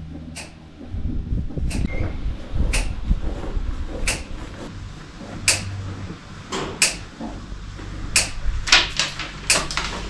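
About a dozen sharp, irregular knocks and clatters, over a low steady hum.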